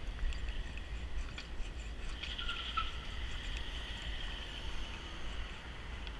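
Water-fed window-cleaning pole working on high glass: a faint steady hiss with light ticks and a brief run of chirpy squeaks a couple of seconds in, over a low rumble.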